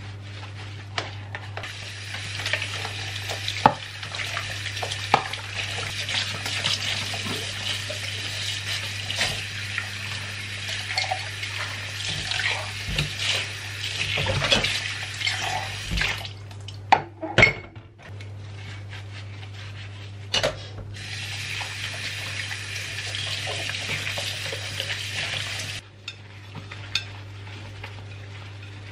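Kitchen tap running into a stainless steel sink during hand dishwashing: splashing water with clinks and knocks of a glass, plates and cutlery against the sink. The water stops for a couple of seconds around the middle, with a few loud clanks. It runs again and shuts off a few seconds before the end. A steady low hum sits underneath.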